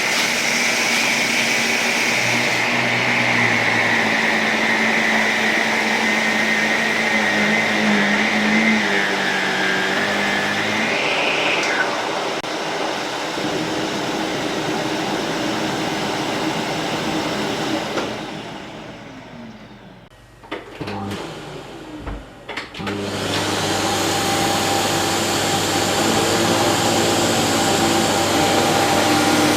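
Canister vacuum cleaners running on a shag rug. One runs with a high whine that wavers and rises briefly near the middle, then is switched off and winds down about two-thirds through, with a few clicks. A different-sounding vacuum then starts up and runs steadily.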